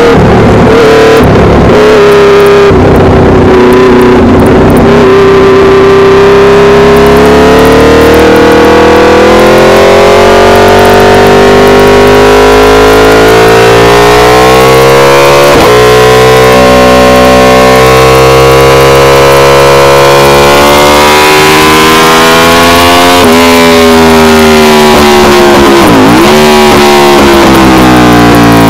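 Aprilia RSV4 Factory's V4 engine through an SC Project CRT exhaust, recorded so loud that it clips. The engine note climbs slowly under acceleration and breaks at a gear change about halfway, climbs again, then jumps and falls in sharp steps near the end as the bike slows.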